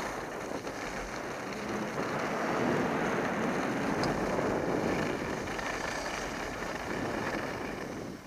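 Skis sliding and carving on groomed snow, a steady scraping rush, mixed with wind buffeting the action camera's microphone; the noise falls away right at the end as the skier slows.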